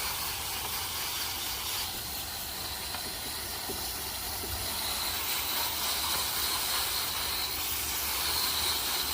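Water running in a steady hissing stream from a tap or hose while freshly shucked horse clams are rinsed out.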